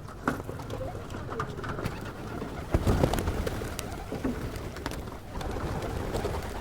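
Pigeon cooing close to the microphone, in short low calls, with small clicks scattered throughout and a louder low thump about three seconds in.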